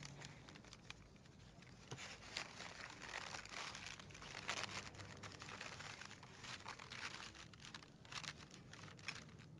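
Paper gift bag and red gift wrapping being opened and unwrapped by hand: irregular rustling and crinkling of paper.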